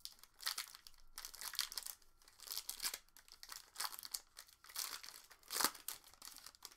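Foil wrapper of a 2019 Panini Select football card pack being torn and peeled open by hand, crinkling and crackling irregularly, with the loudest crackle near the end.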